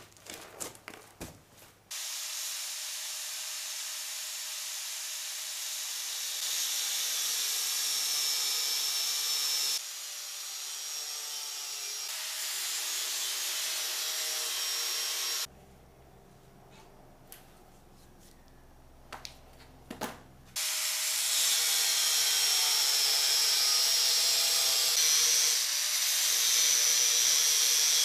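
Corded angle grinder running against the steel motorcycle frame with a high whine. It runs for about thirteen seconds, stops for a few seconds with only some clicks and knocks, then starts again and keeps grinding.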